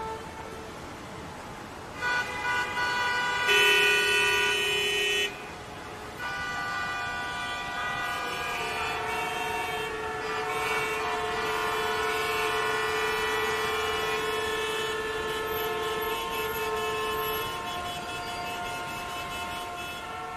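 Several vehicle horns honking in traffic, overlapping and held long: a short blast about two seconds in, a louder chord of horns from about three and a half to five seconds, then a long overlapping blare from about six seconds on.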